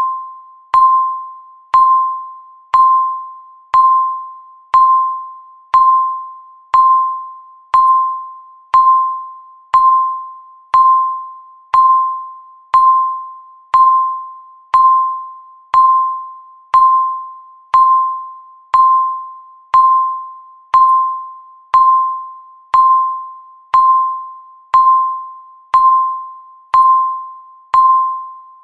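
Countdown timer's electronic tick sound: a single bright ding once every second, each one fading out before the next.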